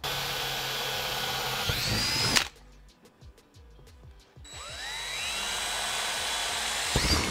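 Cordless drill drilling into a polycarbonate window insert in two runs. The first runs steadily, whines upward and stops abruptly about two and a half seconds in. After a short pause the second spins up with a rising whine and runs steadily to the end.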